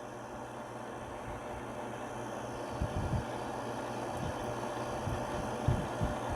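Mabuhay Star clip-on mini ceiling fan running steadily, a hum with an even rush of air. A few low thumps come in about three seconds in and again near the end.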